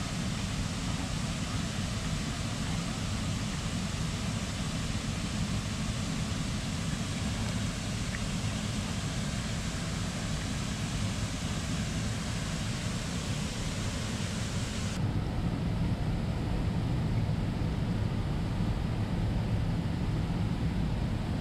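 Steady rushing outdoor noise with no distinct events. The hiss in the upper range drops away sharply about two-thirds of the way through.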